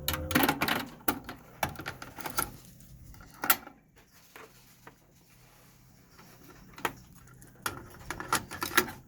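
Sharp mechanical clicks and clunks from a Sony TC-WE475 cassette deck being worked by hand between test plays: a quick run of clicks, a single louder clunk, a pause, then another run of clicks.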